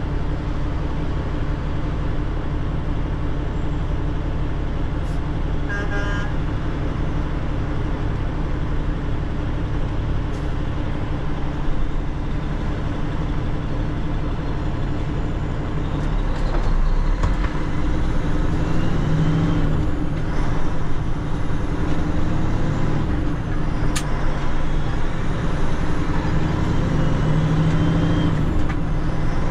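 Tanker truck's engine running, heard from inside the cab: a steady drone that grows louder about halfway through, with a couple of sharp clicks.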